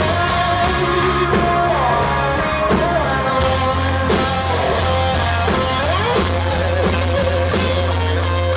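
Live rock band playing: an electric guitar line with bent, gliding notes over a steady bass guitar and a regular drum beat.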